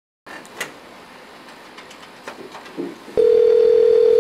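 Desk telephone handset lifted with a few light clicks, then a loud, steady dial tone starts about three seconds in and holds.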